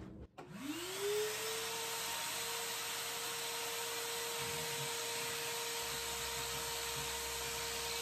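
DeWalt 9-gallon shop vac switched on for dust extraction: its motor spins up in a rising whine over about a second, then runs steadily with air rushing through the hose.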